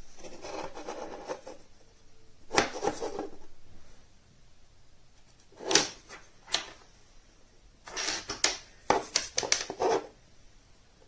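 A rustle, then scattered sharp clicks and knocks, with a quick cluster of them about eight to ten seconds in.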